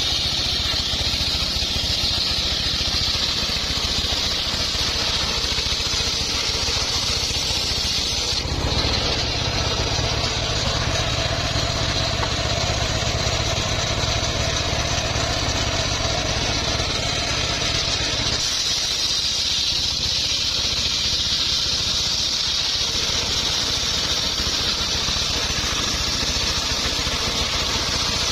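Engine-driven circular saw running steadily while cutting wood, an engine drone with a high whine above it. The mix shifts abruptly twice, about eight and eighteen seconds in.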